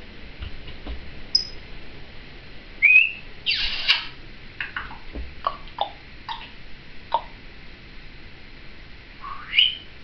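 Timneh African grey parrot whistling and chirping: a short high chirp, a rising whistle about three seconds in followed at once by a short rough squawk, a string of short clicks and chirps, and another rising whistle near the end.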